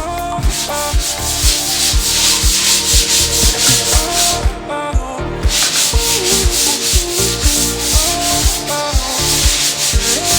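Background music with a steady beat: a repeating low drum thump, a stepping melody and a rhythmic shaker hiss.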